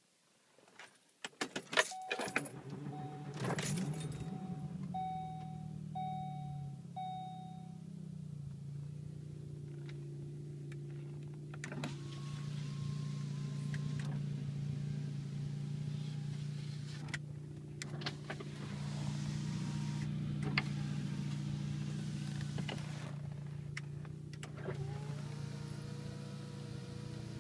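Saab car engine started with the key: key clicks, a short crank, then the engine catches and settles into a steady idle. A warning chime beeps about five times, roughly once a second, just after start. Near the end a small electric motor whines briefly over the idle.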